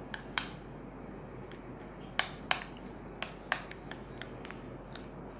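Metal spoon stirring a wet mix of grated carrot and tomato paste in a glass bowl: irregular sharp clicks of the spoon against the glass with soft scraping, a few louder clinks in the middle.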